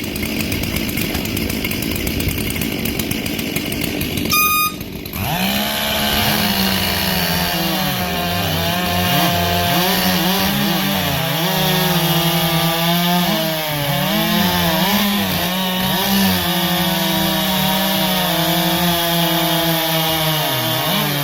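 A short beep about four seconds in. Then a 70cc two-stroke racing chainsaw runs at full throttle and cuts through wood, its engine note dipping and recovering under load until it drops off near the end.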